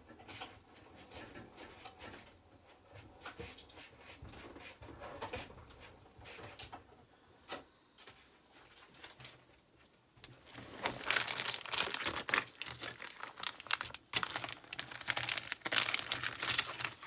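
Clear plastic poly pocket crinkling and rustling as it is handled and opened out. Fainter rustling with light clicks comes first, and the crinkling grows loud for the last six seconds.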